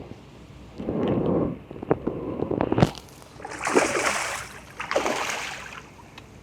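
Water splashing as a hooked common carp is brought to the surface and played to the net, in several bursts; the loudest come about four and five seconds in.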